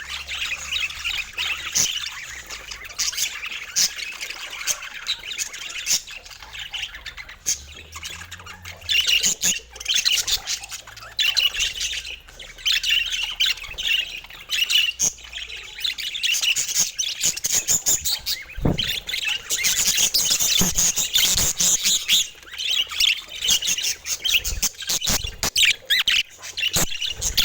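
Budgerigars chattering and chirping without a break, a dense run of fast, high twittering calls.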